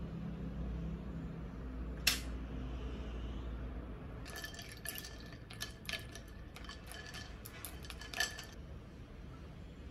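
Dishes and cutlery clinking: one sharp click about two seconds in, then a run of light clinks from about four seconds in, over a low steady hum that fades out around then.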